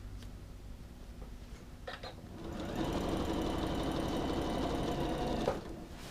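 Janome sewing machine stitching a zipper onto a coat. It runs at a steady pace for about three seconds, starting about two and a half seconds in, and stops abruptly near the end. A short click comes just before it starts.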